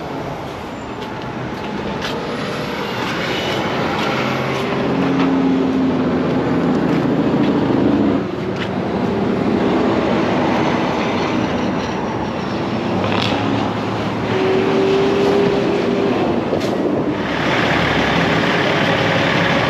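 Road traffic going by: engine hum and tyre noise from passing vehicles, with a few short knocks as a boxed fender is handled.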